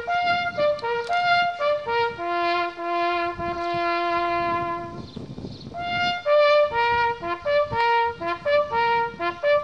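A solo trumpet playing a slow melody of single held notes, with one long low note held from about two to five seconds in, then a short pause before the melody resumes.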